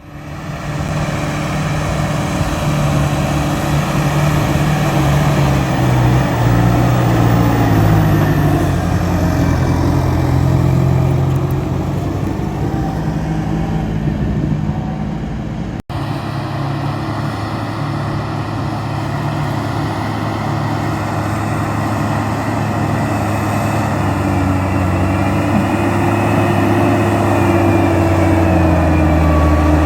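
Diesel farm tractor engines running steadily under load while ploughing, a continuous drone whose pitch drifts slightly. About halfway through the sound cuts abruptly to another tractor drone.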